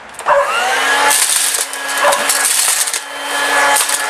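Dirt Devil Plus hand vacuum switched on about a third of a second in, its motor whine climbing quickly to a steady pitch, over the gritty rattling of small rocks and debris being sucked into it.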